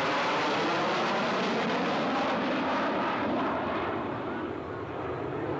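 Electric-powered radio-controlled model airplane in flight, its motor and propeller making a steady rushing drone whose pitch bands sweep slowly as it passes, easing a little about halfway through.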